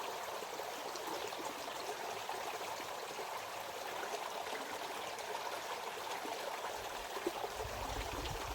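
Small rocky mountain brook running: a steady rush and trickle of water over stones.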